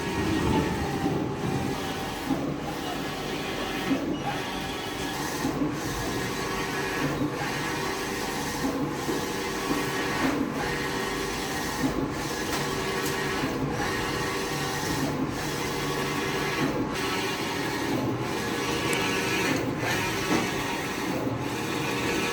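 Innolite eco-solvent wide-format printer running. Its print-head carriage shuttles back and forth, with a brief lull at each turn about every second and a half.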